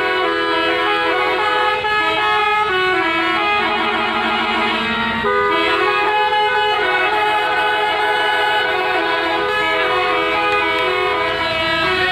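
Telolet bus horns: musical multi-tone horns on several buses sounding together, playing overlapping melodies of held notes that step from pitch to pitch, with a brief break about five seconds in.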